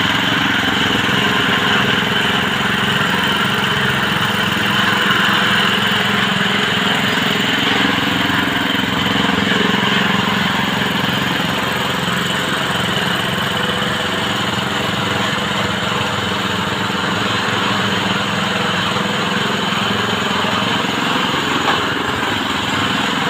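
Small electric mini drill running steadily, its motor giving a constant whine with a fixed pitch.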